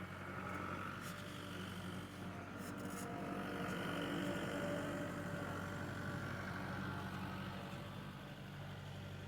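An engine running steadily with an even hum and no change in speed.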